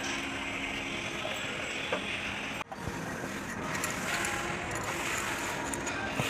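Tractor diesel engine (D1462-TV) running steadily, with a brief break about two and a half seconds in.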